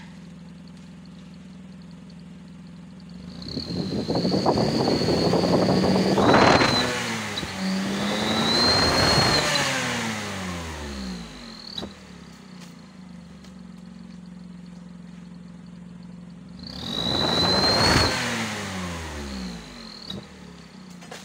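Toyota Raize 1.0-litre turbo three-cylinder engine idling, then revved up three times, twice in quick succession and once more later. With each rev a high, thin whistle from an aftermarket turbo whistler sounds over the engine, and the engine note falls away as the revs drop back to idle.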